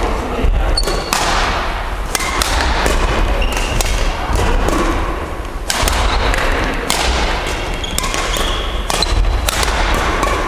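Badminton rackets striking shuttlecocks in ongoing rallies: repeated sharp smacks, a few each second, mixed with thudding footfalls and brief shoe squeaks on the wooden court, echoing in the large gym.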